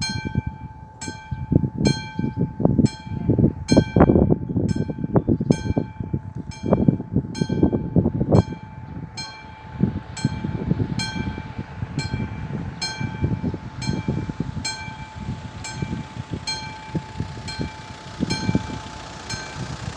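Electronic warning bell of a railway level crossing ringing at about two strikes a second, over a steady tone: the crossing is closed for an approaching train. Low rumbling with irregular thumps sits beneath the bell and is strongest in the first half.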